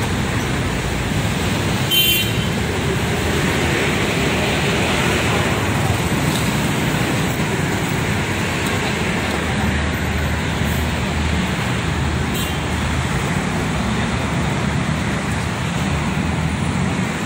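Steady road traffic noise: vehicles running past on a wet road, with a low engine rumble. A short sharp click about two seconds in.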